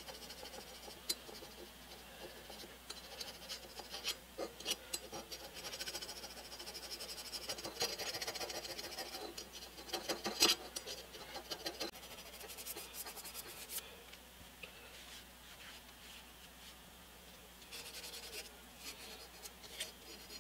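Small metal scraper scratching old gasket material off the top flange of a cast iron air-compressor cylinder: faint, intermittent scraping strokes with a few sharp clicks of metal on metal.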